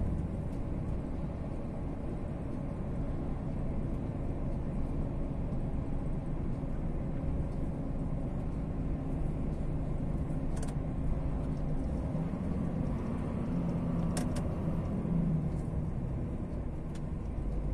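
DAF XF 480 truck under way on a highway, heard inside the cab: the steady drone of its PACCAR MX-13 straight-six engine with tyre and road noise. Two faint clicks in the second half.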